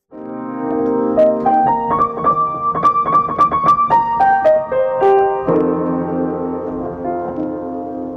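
Solo piano music that starts abruptly, with quick stepping notes climbing and falling over held chords, then changes to fuller chords about five and a half seconds in, leading into a song.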